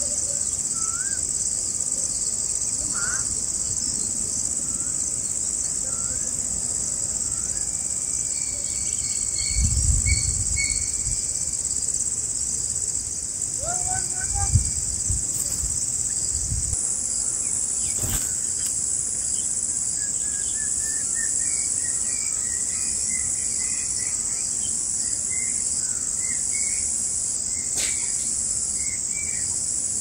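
Steady high-pitched insect chorus running throughout, with faint scattered bird chirps over it and two brief low rumbles near the middle.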